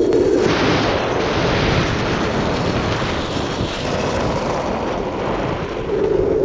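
Street luge rolling fast downhill: wheels rumbling on rough asphalt and wind rushing over the rider-mounted microphone. A steady lower drone gives way to a broad rushing hiss about half a second in, and the drone comes back near the end.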